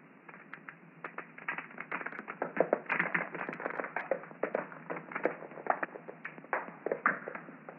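Creeping woodsorrel (Oxalis corniculata) seed pods bursting, a dense irregular run of tiny dry clicks and ticks as the seeds are shot out, a few of them sharper and louder than the rest.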